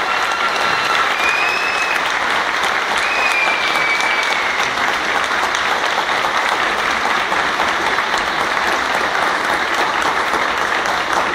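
Audience applauding steadily, with a few shrill drawn-out calls rising above the clapping in the first few seconds.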